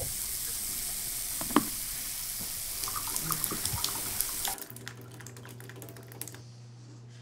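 Running water, a steady hiss like a tap running, that cuts off about four and a half seconds in; a quick run of clicks and a low hum follow for a second or two before it goes quieter.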